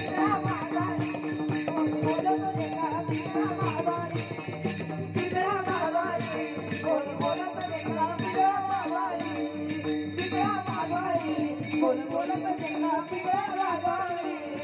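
Marathi Warkari bhajan music: a boy singing through a PA system, with brass taal hand cymbals clashing in a steady rhythm over a pakhawaj barrel drum.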